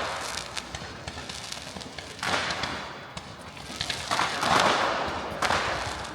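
Fireworks bursting: a string of sudden bangs and crackles, each dying away over about half a second to a second. One comes at the very start, one about two seconds in, and the loudest and longest about four to five seconds in, with another just after.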